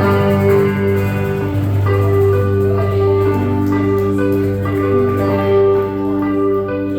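A live band playing the instrumental close of a song: sustained, ringing notes changing about twice a second over a steady held bass note.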